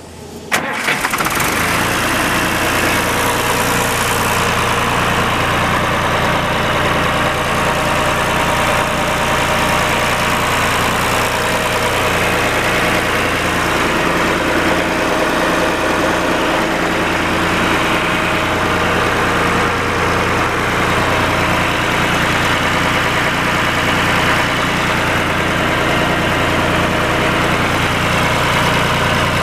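John Deere tractor engine started at the key, catching about half a second in, then running steadily at idle.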